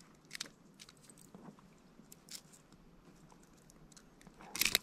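Small scattered clicks and rustles of hands working treble hooks out of a caught dentex that has swallowed the lure, with a brief louder rustle near the end.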